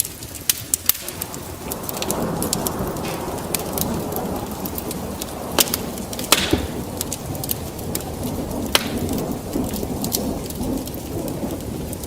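Wood fire crackling with sharp scattered pops over steady rain, and a long low roll of thunder that builds about two seconds in and carries on.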